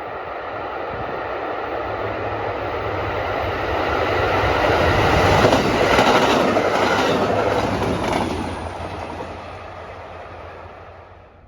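A train passing: the rumble and clatter of its wheels on the rails grow to a peak midway, then fade away before cutting off.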